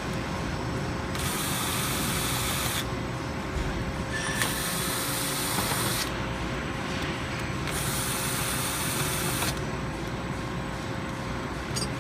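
A Phillips screwdriver backing out the screws of a metal meter cover, small ratcheting and scraping, under a steady hiss of background noise with a faint constant hum.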